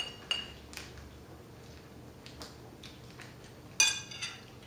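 Quiet tea-table sounds: scattered light taps and clicks from hands and tableware, with brief ringing clinks of china or glass. The loudest is a sharp ringing clink nearly four seconds in, followed by a softer one.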